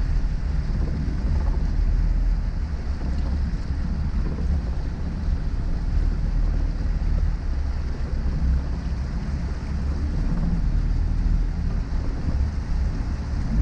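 Peugeot 106 pushing steadily through deep floodwater, heard from inside the cabin: a steady low engine drone mixed with water washing against the front of the car.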